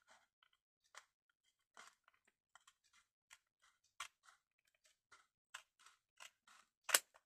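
Scissors snipping paper in a string of small, faint cuts, one louder near the end. Excess paper is being trimmed away so the zip can close.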